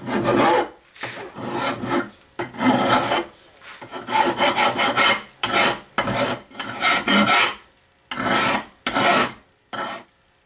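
Coarse bastard file rasping along the sawn edge of a 3.2 mm aluminum plate clamped in a vise: about a dozen separate push strokes, roughly one a second with short pauses between them, stopping near the end.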